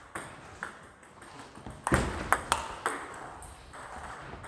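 Table tennis ball clicking sharply against bats and the table in a practice rally: several separate ticks, the loudest about two seconds in.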